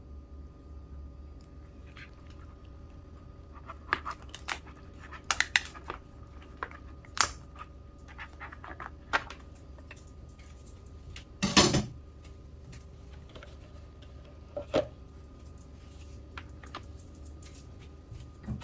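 Shrimp or lobster being cleaned and cut in a kitchen: scattered sharp clicks, snips and crunches of shell. The loudest is a longer crunch about eleven and a half seconds in. A low steady hum runs underneath.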